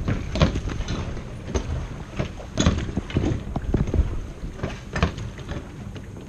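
Irregular hollow knocks and clunks on a plastic kayak hull, about one every second, from gear and handling aboard the kayak, over a low rumble.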